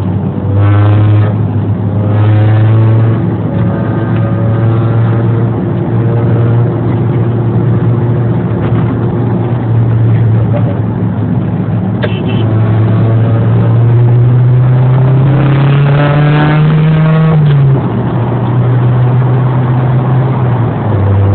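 A motor running with a steady, loud droning hum. Its pitch climbs gradually about two-thirds of the way through, then drops back suddenly. Fainter voices or music sit underneath.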